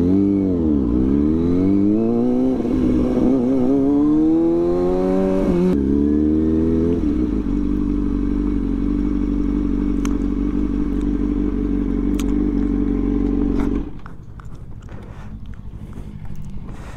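Kawasaki Ninja sport bike engine slowing down to pull over, its pitch dipping and rising with the throttle. It then settles into a steady idle for several seconds and cuts off suddenly about fourteen seconds in.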